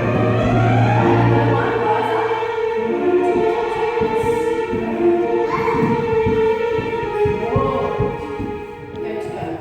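Music with long held notes and slow gliding pitches, over a low drone that drops out about two seconds in.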